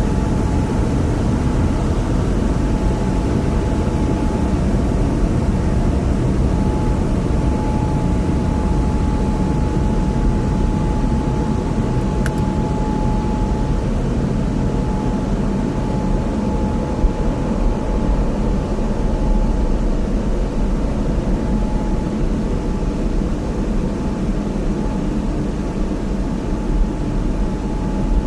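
Automatic car wash heard from inside the car's cabin: a steady, dense low rumble with a thin steady whine over it, and one short click about twelve seconds in.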